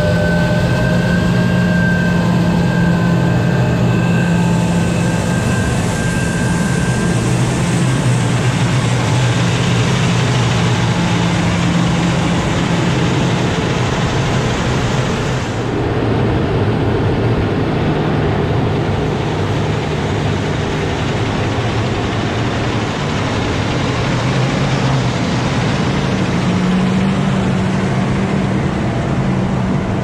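Versatile DeltaTrack 570 tractor's diesel engine running steadily under load while the J&M grain cart's auger unloads corn into a semi trailer. A thin high whine fades out about seven seconds in.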